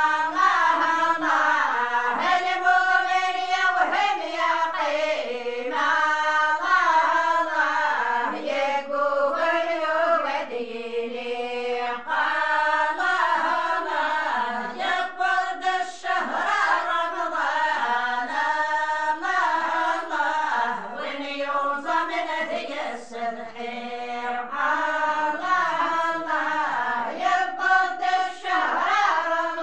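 A group of women singing an unaccompanied Amazigh religious praise song (madih) together in unison, a slow chant-like melody that holds and bends from note to note without a break.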